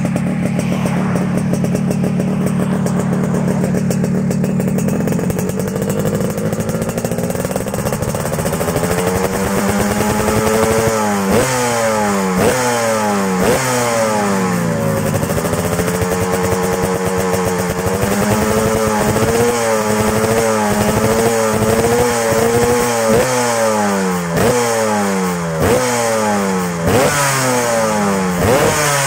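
Yamaha RX King's two-stroke single-cylinder engine breathing through a standar racing (SR) exhaust with a rust-proof steel silencer. It idles steadily for about five seconds, then is revved up and down again and again: a slow climb, a held rev with a wavering pitch, and quick sharp throttle blips near the end.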